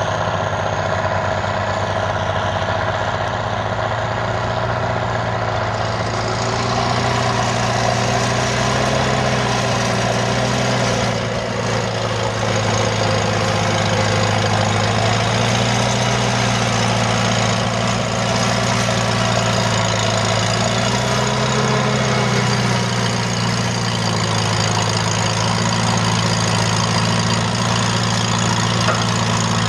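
Tractor engine running steadily under load while pulling a plow through the ground, its pitch dipping and recovering slightly now and then.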